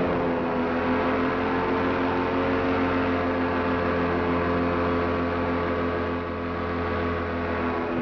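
Paramotor engine and propeller running steadily in flight, a humming tone whose pitch eases down slightly at the start and then holds.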